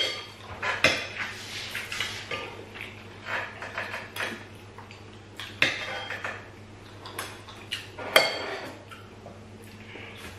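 Eating at a table: a spoon clinking and scraping against ceramic plates in short, irregular knocks, with the small sounds of hands working food. A low steady hum runs underneath.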